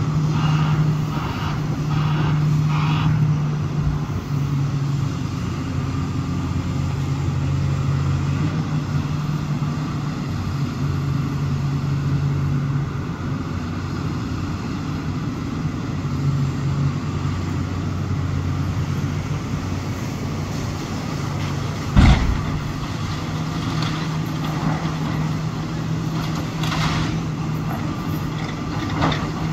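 Komatsu PC360LC excavator's diesel engine running with its note shifting as it works, over scattered crunches and knocks of building demolition. One loud bang about two-thirds of the way through.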